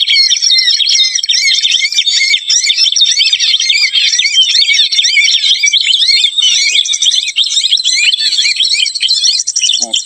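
Gelatik batu (cinereous tit) chirping, a loud, dense stream of rapid overlapping high calls that does not let up.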